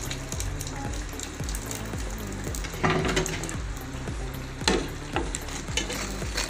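Box patties made from samosa sheets deep-frying in hot oil in a kadhai: a steady sizzle, with louder bursts of crackling about three seconds in and again near five seconds.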